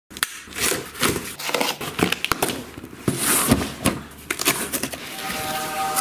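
A cardboard shipping box being handled and opened: irregular scraping, rustling and knocks of cardboard, with a short hiss about three seconds in. Music with steady tones comes in near the end.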